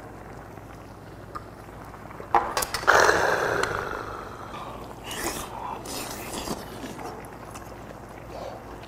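A man's sharp, hissing exhale after downing a shot of soju. It comes suddenly about three seconds in, just after a few clicks, and fades over about a second, with softer eating sounds after it.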